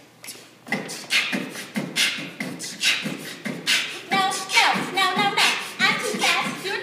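Vocal beatboxing with a steady beat of mouth-made percussion. About four seconds in it is joined by sung melodic vocal sounds.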